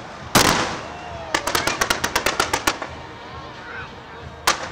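Fireworks going off: a loud bang just after the start, then a quick run of about a dozen sharp cracks, about eight a second, then another bang near the end.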